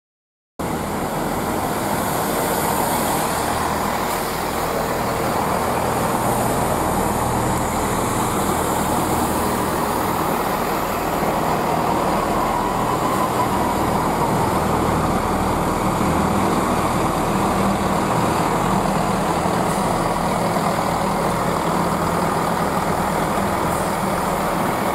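Chiltern Railways Class 165 diesel multiple unit's underfloor diesel engines running steadily at the platform, a low, even engine sound.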